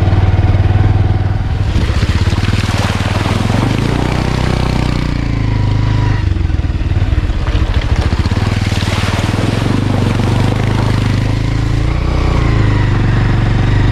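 Motorcycle engine running while riding over a sandy, stony track, its note rising and falling a few times with changes of speed. A steady hiss of tyre and road noise runs under it.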